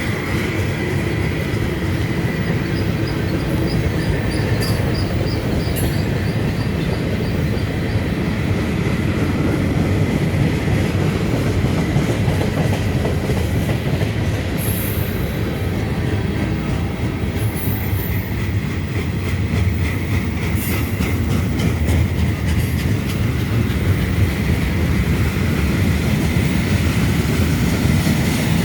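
CSX freight train rolling past: a steady rumble of the cars with wheels clicking over the rail joints, and a few brief high squeals of the wheels about halfway through.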